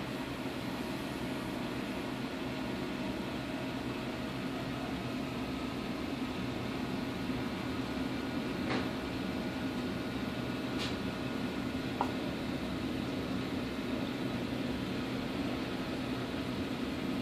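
Steady low mechanical hum with an even hiss over it, with a few faint brief ticks in the middle.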